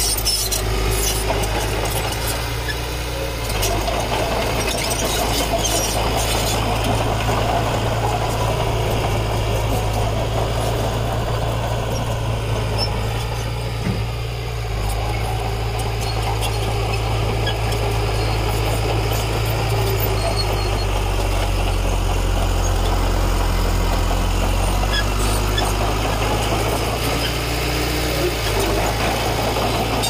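Diesel engine of heavy earthmoving machinery running steadily, its low note shifting a little as the load changes.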